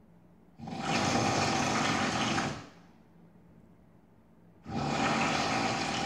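A sleeping man snoring loudly: two long, rattling snores of about two seconds each, some four seconds apart, with quiet breathing between.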